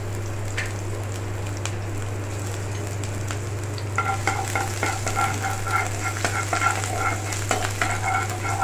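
Chopped garlic and ginger sizzling in hot oil in a nonstick kadai, over a steady low hum. From about four seconds in, a perforated metal spatula stirs and scrapes around the pan in a repeated, ringing scrape, about two strokes a second.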